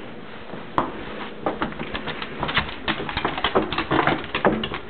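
Irregular crunching steps in snow, starting about a second in and coming several times a second.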